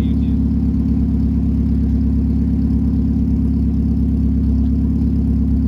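Vehicle engine idling steadily and loudly, holding an even pitch with no revving.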